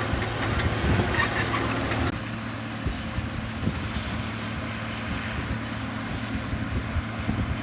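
Komatsu D65EX bulldozer's diesel engine running steadily, with high squeaks in the first two seconds. The sound drops abruptly to a quieter, steady engine hum about two seconds in.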